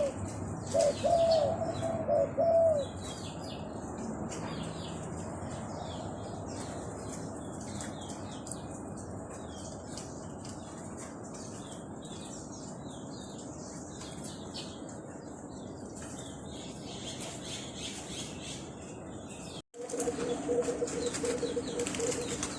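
Zebra dove cooing in short rising-and-falling phrases for the first few seconds, over a background of small birds chirping high and fast. Near the end the sound briefly cuts out, and steady low tones follow.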